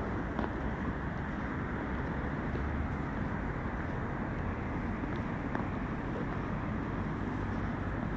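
Steady low rumbling noise of wind on a phone's microphone outdoors, with a few faint ticks.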